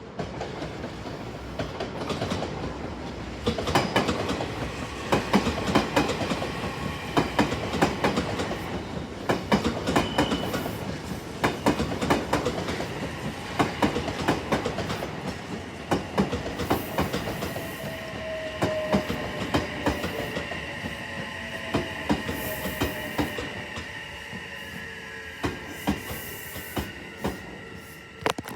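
A train running on track, its wheels clicking rapidly over rail joints. About halfway through, the clicks thin out and steady high squealing tones take over, with a slowly falling whine among them.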